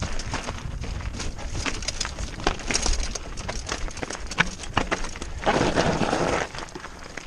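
Mountain bike rattling down a rocky trail: frequent clicks and knocks from the bike over rocks, with a low wind rumble on the microphone. About five and a half seconds in, a louder gritty rush lasting about a second as the tyres run over loose gravel.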